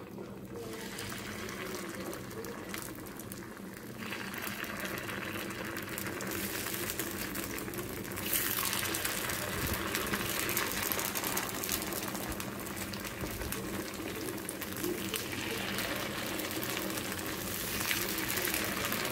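Carrot and onion paniyaram batter sizzling as it is ladled into hot oil in the cups of a kuzhi paniyaram pan. The sizzle gets louder in steps through the first half, as each new cup is filled.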